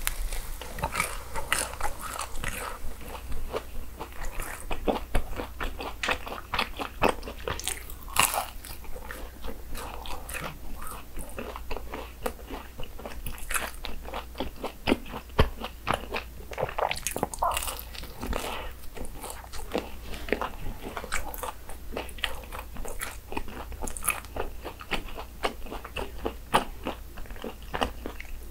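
A person biting into and chewing crisp churros, with a continuous, irregular run of crunches.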